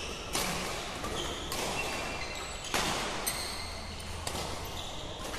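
Badminton rally: racket strings striking the shuttlecock in a run of sharp hits roughly a second apart, with shoes squeaking on the court floor between them.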